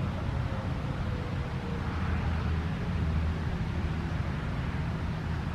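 Steady low outdoor rumble, with a faint distant siren tone slowly falling and fading out about a second and a half in.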